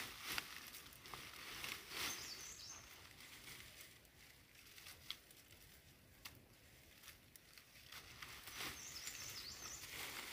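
Faint rustling of leafy cut branches being handled and gathered, with scattered small snaps and crackles of stems and dry litter. It is quieter in the middle and picks up again near the end. Two short high chirps come through, one about two seconds in and one near the end.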